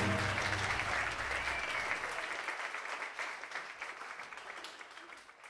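Audience applauding, a dense patter of many hands that fades away steadily to silence.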